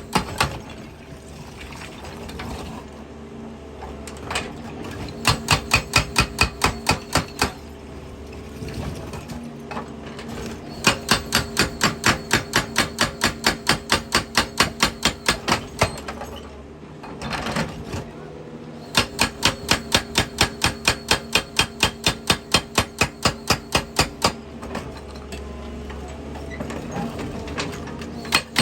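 Excavator's hydraulic breaker hammering rock in runs of rapid, even blows, about six a second, each run lasting several seconds. Between runs the machine's engine keeps running steadily.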